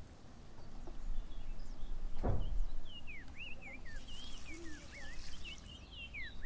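Small birds chirping in many quick rising and falling calls through the second half, over water: a splash about two seconds in, then water pouring off for about two seconds as grain is washed by hand in a plastic basin.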